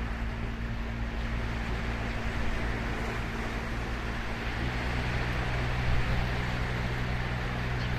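Ocean waves breaking and washing up the beach in a steady rush of surf. Under it runs a low steady hum that shifts slightly in pitch about halfway through.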